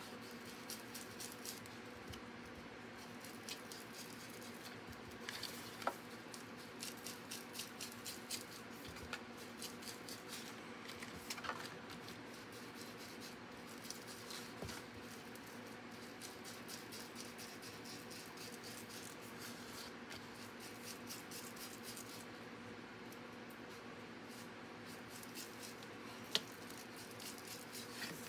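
Ink blending tool scrubbing and dabbing pigment ink onto the edges of white cardstock in quick, soft, faint strokes, with a few sharper taps, the loudest near the end. A faint steady hum lies underneath.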